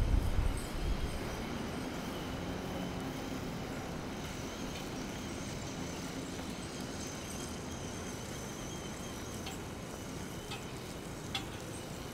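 City street ambience: a low rumble fades out in the first second, then a steady hum of traffic with a few faint clicks near the end.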